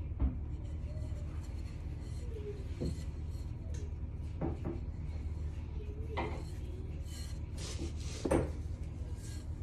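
Glass mixing bowl held upside down and shifted on a plastic cutting board as sourdough slides out of it: several light knocks and scrapes, the loudest near the end.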